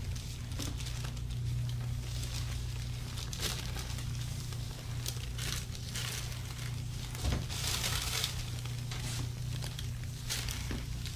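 Irregular rustling and crinkling as hands rub over clothing and the treatment-table cover during a massage, over a steady low hum. There is a single sharp knock about seven seconds in.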